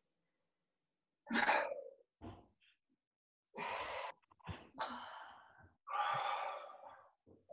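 A person sighing and exhaling hard several times, a second or so apart, while straining through a painful shoulder-blade stretch with a mobility ball pressing into the muscles around the scapula.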